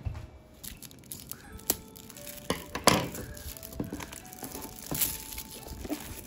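Background music, a slow melody of single held notes, with several sharp crackles and some crinkling over it, the loudest crackle about three seconds in.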